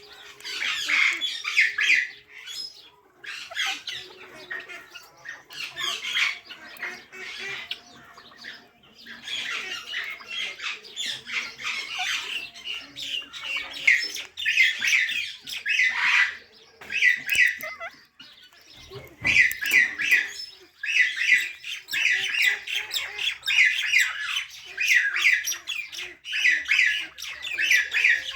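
Parrot chirping and squawking in repeated bouts of short, rapid, shrill calls, with brief pauses between bouts and a short low bump about two-thirds of the way through.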